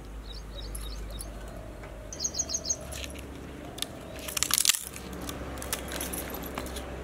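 Small birds chirping, with a quick run of five high chirps about two seconds in. About four and a half seconds in comes a short burst of clattering and crackling as pieces of firewood are handled at a concrete-block hearth.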